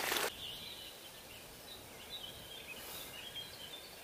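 Faint songbirds chirping repeatedly, short high calls over quiet outdoor background noise, after a brief rustle at the very start.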